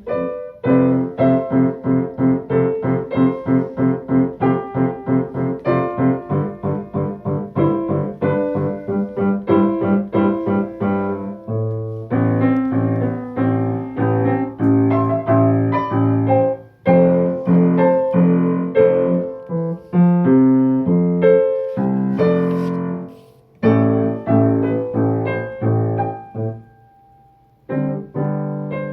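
Solo piano playing a pop-song arrangement. It starts with fast, evenly repeated chords, then moves to a more varied melody and chords with a few short breaks, including a near-pause on a single held note shortly before the end.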